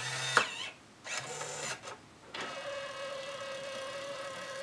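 Brother P-Touch PT-E550W handheld label printer printing a label: two short whirs, then its tape-feed mechanism runs with a steady whir from about halfway through.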